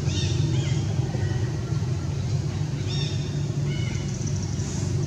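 A steady low drone like a running engine, with a few short high chirps over it near the start and again about three to four seconds in.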